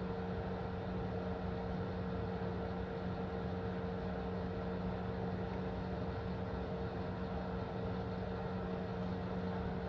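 Steady mechanical hum, a low tone with a fainter higher tone above it, holding constant with no change in level.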